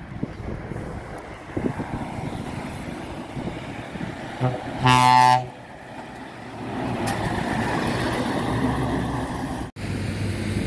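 Scania tanker truck's air horn: a short toot and then a louder blast of about half a second on one steady pitch. After it comes the truck's diesel engine passing close by, growing louder.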